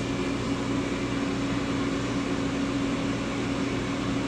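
Ninja air fryer running with chicken inside at 390 degrees: a steady fan hum with a constant low tone.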